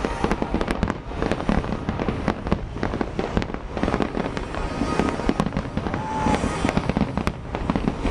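Fireworks finale barrage: a rapid, continuous run of bangs and crackling reports with no gaps, and a brief whistle about six seconds in.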